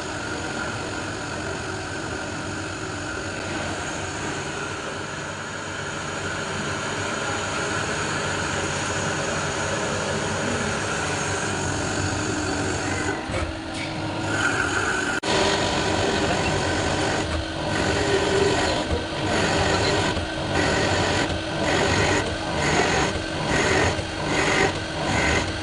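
CNC lathe turning stock off a diameter: a steady machining noise of the spindle and cutting tool. About two-thirds of the way through it changes to a regular pulsing that grows quicker toward the end.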